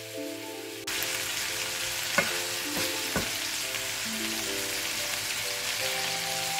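Chicken pieces sizzling in a stainless steel pan, the sizzle jumping louder about a second in, with three sharp knocks of a spatula against the pan around two to three seconds in. Background music plays throughout.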